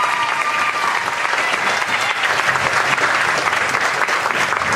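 Audience applauding, with a long high-pitched cheer over the clapping in the first second.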